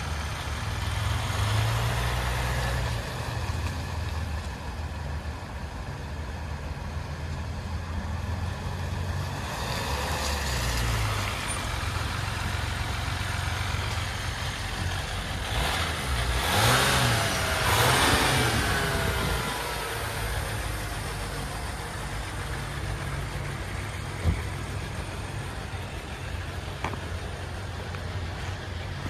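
A motor vehicle engine running steadily at idle, with a louder swell of gliding engine sound about sixteen to nineteen seconds in and a single sharp click about twenty-four seconds in.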